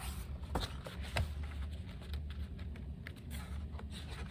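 Steady low room hum with a few faint, light clicks.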